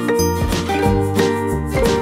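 Light background music with a steady beat.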